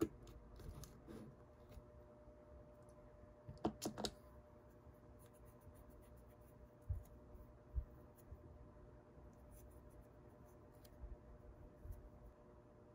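A pump-top dispenser bottle clicking several times in quick succession, about four seconds in, as it is pressed to wet a lint-free nail wipe. Then the wipe rubs softly over the gel nails, with a few soft bumps against the table, over a faint steady hum.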